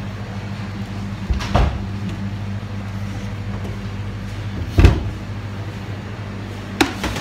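A few separate knocks and clunks of kitchen handling, like a cupboard door or containers being set down, the loudest about five seconds in, over a steady low machinery hum.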